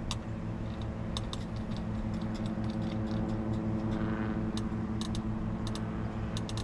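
Irregular light clicks of plastic as the outer rim of an e-scooter's headlight housing is twisted tight by hand, stopping the housing's rattle. A steady low hum runs underneath.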